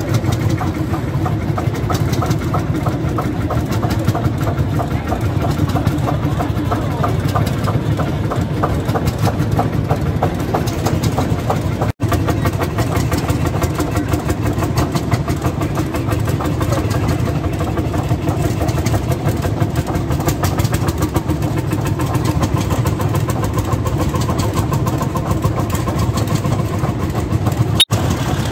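Vintage tractor engines running at low speed with a steady chugging beat. The sound breaks off for an instant twice, at cuts.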